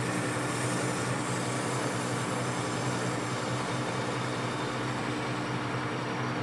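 Metal lathe running steadily while a turning tool faces the rough surface of a cast zinc-alloy (ZA-12 Zamak) hand wheel: a steady motor hum under the even hiss of the cut.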